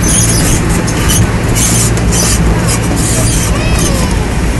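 Fairground ride train running with a steady low rumble. Brief high clattering hiss cuts in now and then, and a few faint squeals come near the end.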